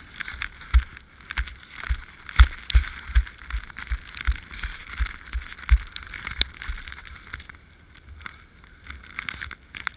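Swimming strokes in icy water: rhythmic splashing with dull thumps, about two or three a second, thinning out after about six seconds.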